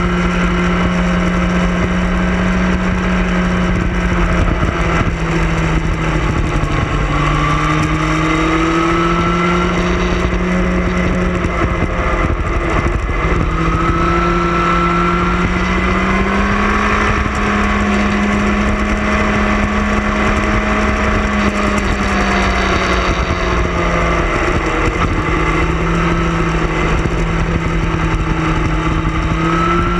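Sport motorcycle engine running at steady revs under way, its pitch dropping and climbing again a few times as the throttle changes through the bends, over a constant rush of wind and road noise.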